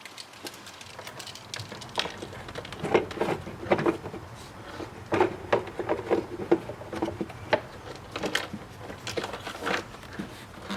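Irregular clicks and knocks of hands working on a car's plastic air filter housing and filter, coming thicker from about two seconds in.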